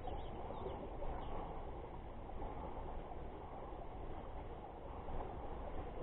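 Steady outdoor background noise by a pond, with a few faint bird chirps in the first second or so.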